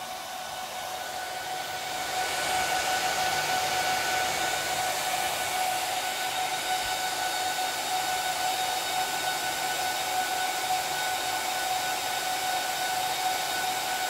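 HPE ProLiant DL380p Gen8 server's bank of six cooling fans running fast at boot-up: a loud steady rush of air with a steady whine. It swells about two seconds in, then holds level.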